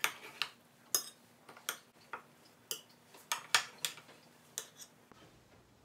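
Metal spoon clinking and scraping against a metal muffin tin as baked egg muffins are scooped out: about a dozen irregular sharp taps that stop about five seconds in.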